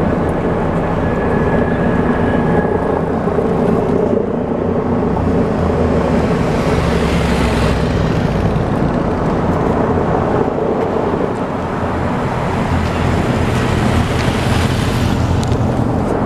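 Motor vehicles running past on the road, their engines and tyres swelling about halfway through and again near the end.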